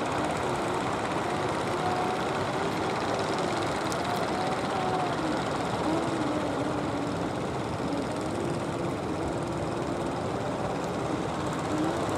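Engines of wooden fishing boats running steadily under way: a drone that wavers slowly up and down in pitch over a constant rushing noise.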